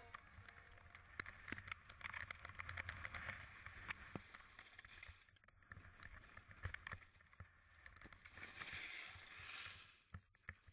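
Faint swishing and hissing of skis carving through deep powder snow, swelling and fading with the turns, with scattered small clicks and knocks.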